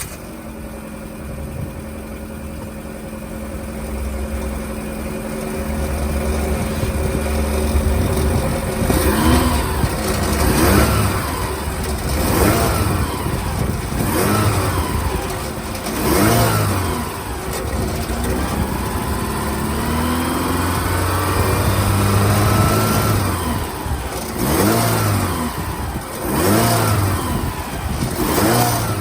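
Car engine idling steadily just after starting, then revved in a series of short blips from about nine seconds in, each rev rising in pitch and falling back to idle.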